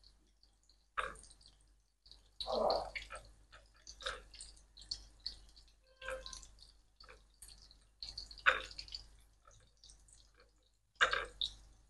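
Breaded chicken pieces frying in hot oil in a pan, the oil crackling and popping in irregular bursts, strongest a few seconds in and again near the end. A fork clinks now and then against a bowl.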